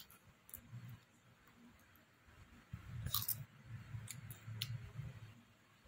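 Faint mouth sounds of a toddler chewing food, with a few soft clicks and smacks, one a little sharper about three seconds in.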